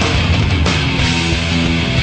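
Loud J-rock music playing, a dense, steady rock mix.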